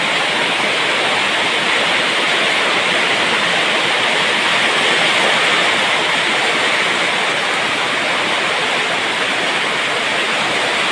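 Heavy downpour: a loud, steady rush of rain that does not let up.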